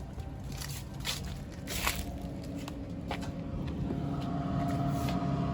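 Footsteps and scuffing clicks over a steady low rumble.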